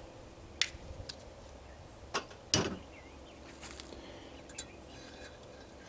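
A few light, separate clicks and taps of pliers and stainless steel wire against the metal of a small electric lead-melting pot as the wire is worked around it. The loudest tap comes about two and a half seconds in.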